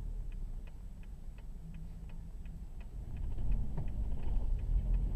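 Car turn-signal indicator clicking steadily, about three clicks a second, over low engine and road rumble inside the cabin; the rumble grows louder about three seconds in.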